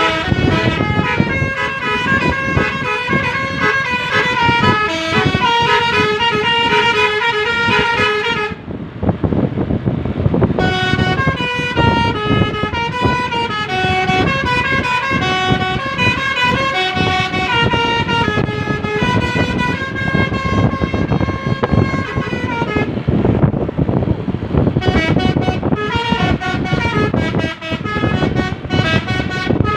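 Indonesian bus 'basuri' telolet horn, a multi-tone air horn, playing a tune of stepped notes that breaks off twice for a couple of seconds. Engine and road noise runs under it.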